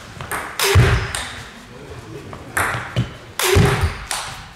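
Table tennis rally: the celluloid ball clicking off the bats and bouncing on the table with a short ping, among heavier thuds, two of them loudest, about a second in and near the end.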